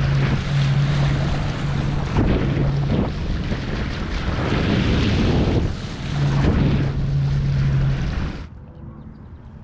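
Wind buffeting the microphone over water rushing and splashing past the hulls of a small beach catamaran under sail, with a steady low hum that comes and goes. About eight and a half seconds in it drops suddenly to a much quieter background.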